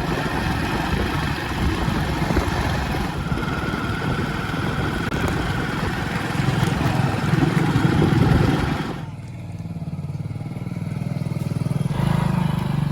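Diesel engine of heavy machinery running under way, with a rough, noisy rattle. About nine seconds in, the sound changes suddenly to a smoother, lower steady engine drone.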